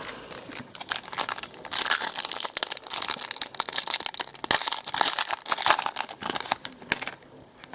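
Plastic trading-card pack wrapper crinkling and tearing as a fresh pack is ripped open: a dense, irregular run of crackles that dies away near the end.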